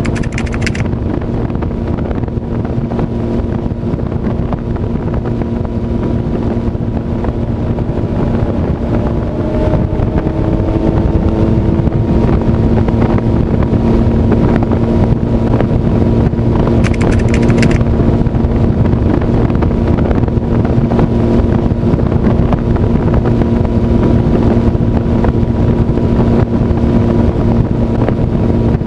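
Yamaha 250 hp outboard motor running at high speed with a steady drone, under heavy wind noise on the microphone. Two brief high-pitched sounds, one at the very start and one about 17 seconds in.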